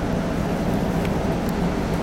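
Steady low hum and rumble inside an electric train car standing at a station, a constant band near the bottom of the range with no sudden sounds.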